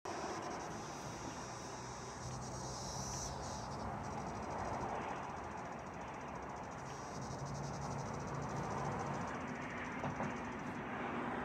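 Pen scratching on paper as text is written out by hand, over a steady high-pitched trill in the background.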